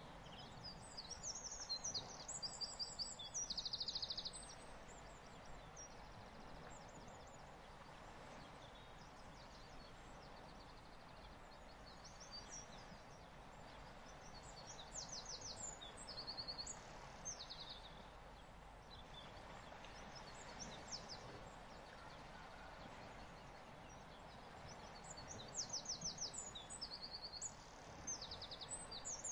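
Bird calls: high, rapid chirping trills in three bursts, over a faint steady background hiss.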